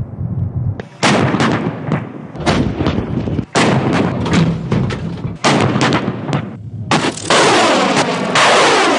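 Live-fire heavy weapons: a rapid string of sharp shots and blasts, several a second at times, then near the end a long rushing roar with a falling sweep.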